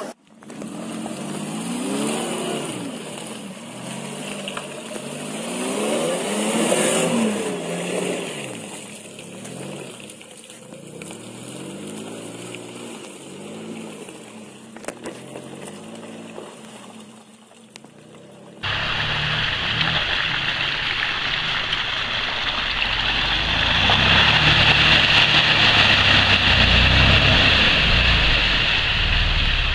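Off-road 4x4 SUV engines revving up and down as they climb a muddy forest track. About 18 seconds in, a sudden cut to a louder, rougher stretch: an SUV's engine working hard as its tyres churn through deep mud and puddles.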